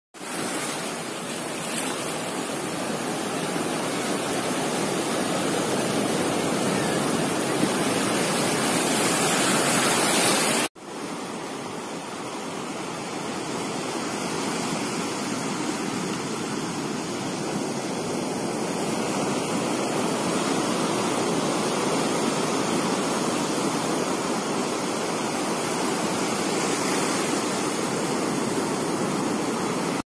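Sea surf washing up a sandy shore, a steady rush of breaking waves. It cuts off abruptly for an instant about a third of the way through, then carries on a little softer.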